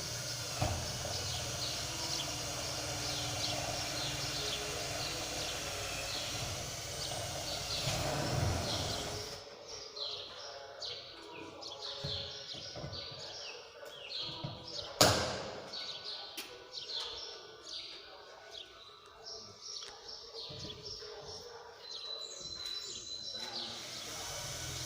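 Birds chirping over and over in short falling notes above steady outdoor background noise, with one sharp knock about fifteen seconds in.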